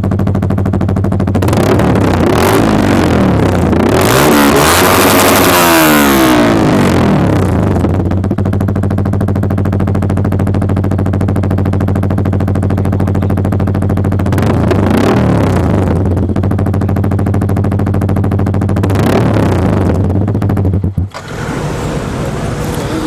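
Yamaha R15 V3's 155 cc single-cylinder engine through an SC Project full-system exhaust, idling and being blipped: a run of repeated revs in the first several seconds, two shorter revs later, then the engine cuts off near the end.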